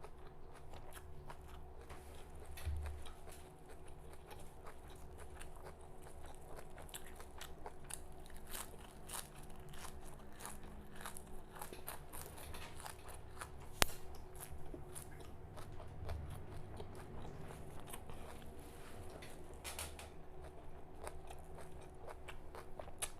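Close-up chewing of raw red amaranth (lal chaulai) greens: soft crunching and small wet mouth clicks, with one sharper click a little past halfway.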